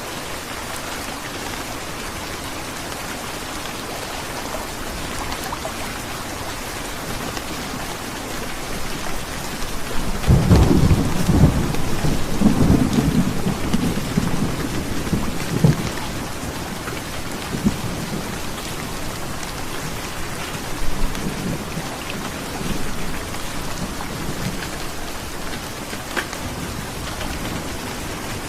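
Heavy rain falling steadily, with a rumble of thunder that comes in about ten seconds in, rolls for several seconds, and dies back under the rain with a few fainter rumbles after.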